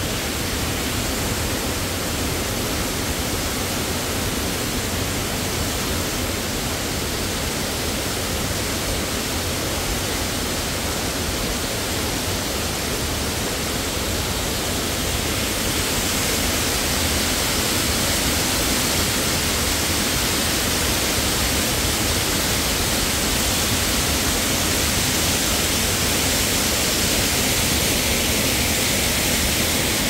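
Waterfall: water falling and rushing in a steady, loud roar that grows a little louder about halfway through.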